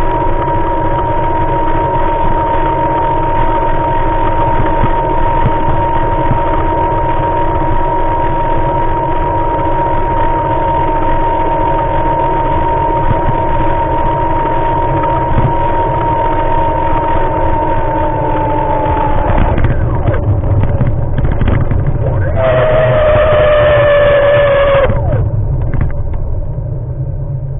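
Steady high-pitched motor whine from the small vehicle carrying the camera as it moves along, over low wind rumble on the microphone. The whine drops slightly in pitch and stops about two-thirds of the way through; a few seconds later a shorter whine sounds, falling in pitch for about two seconds.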